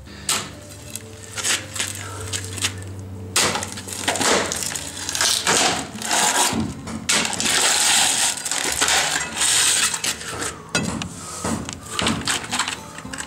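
Steel bar chipping and scraping at a concrete slab: irregular knocks, with broken concrete crunching and rattling.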